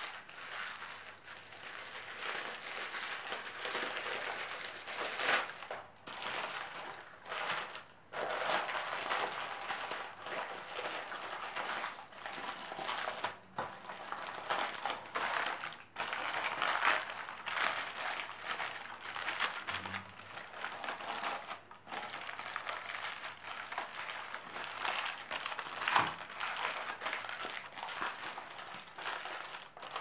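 Baking parchment crinkling and rustling as hands crumple it and press it into a round metal springform cake tin, in irregular handfuls with short pauses; the sharpest crackle comes near the end.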